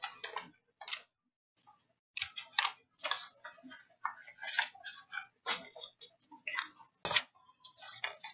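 A sheet of bond paper being folded and creased by hand: short, irregular crinkles and rustles, about a dozen of them.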